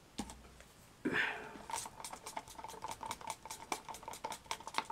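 A wooden craft stick stirring resin in a thin plastic cup, clicking against the cup's wall several times a second. The clicks start after a single louder knock about a second in.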